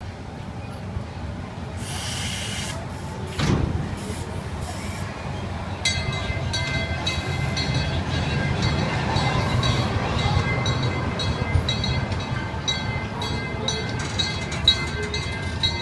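Small train-themed family roller coaster's train rolling along its track with a steady rumble. A short hiss about two seconds in and a thump just after, then a regular clicking from about six seconds on.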